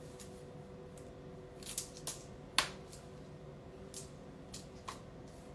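Scattered light clicks and taps, about eight over a few seconds, the sharpest about two and a half seconds in, over a steady faint hum.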